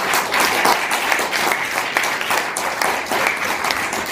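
Audience applauding: many hands clapping at once, a dense, even patter of claps.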